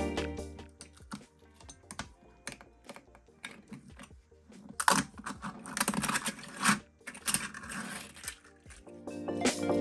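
Small hard plastic parts clicking and clattering: an articulated 3D-printed PLA toy being flexed and moved, its linked segments knocking together. Scattered light clicks at first, then denser rattling about halfway through.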